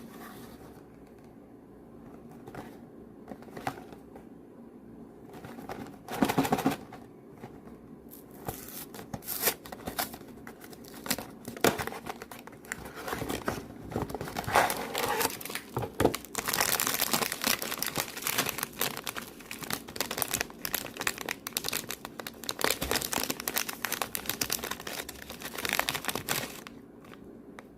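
Snack packaging crinkling and tearing as it is handled and opened: scattered crinkles at first, then dense, continuous crinkling from about eight seconds in until it stops near the end.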